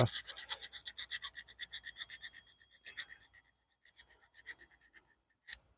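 Rapid back-and-forth scraping strokes, about eight a second, as corrosion and old mud are scrubbed off a battery cable terminal. The run stops about two and a half seconds in, and a few scattered scrapes follow.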